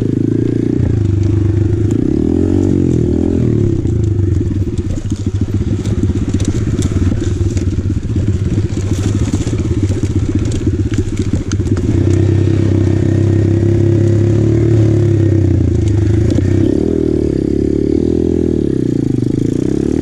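Apollo RFZ 125cc pit bike's single-cylinder four-stroke engine running as it is ridden, revs rising and falling. Between about four and twelve seconds in it is choppy, with crackling and clattering of sticks and debris under the wheels; from about twelve seconds the engine runs steadier and louder.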